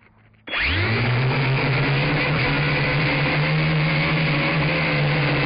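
Nine Eagles Mola M24 quadcopter's motors and propellers spinning up about half a second in, rising quickly in pitch, then running steadily as the drone lifts off. Heard up close through the drone's own onboard camera microphone.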